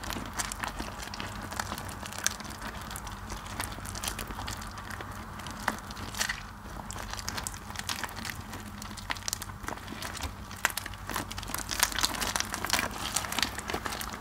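Rubber-gloved hands squeezing and kneading wet, mushy soap paste in a bowl: a continuous run of wet crackling and squishing clicks, busier near the end, over a steady low hum.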